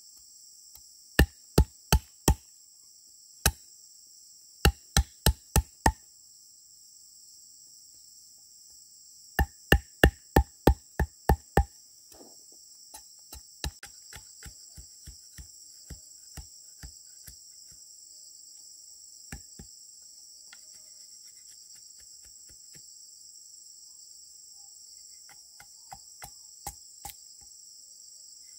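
Sharp wooden blows in quick runs of four to eight, about three a second, in the first part, then lighter scattered taps, over a steady high chorus of insects.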